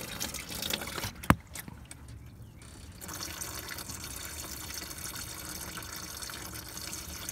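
Engine coolant draining in a steady trickle from the open side coolant flange of a 2003 VW Golf MKIV after the hose is pulled off. A single sharp click comes about a second in, and the even trickle settles in about three seconds in.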